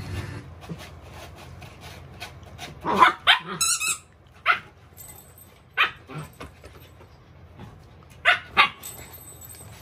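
Samoyed barking excitedly in short sharp barks: a quick pair about three seconds in, two single barks over the next few seconds, and another quick pair near the end. Between the barks, faint scratching of paws digging at the fabric of a pet cot.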